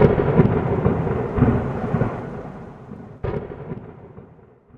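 Logo sting sound effect: a sudden crash with a rumbling tail that slowly fades, then a second, weaker hit about three seconds in.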